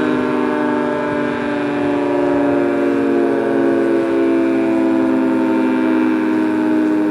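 Federal Signal 3T22A outdoor tornado warning siren sounding its steady alert signal, a loud sustained two-tone chord. Its loudness swells and fades a little as the siren head rotates.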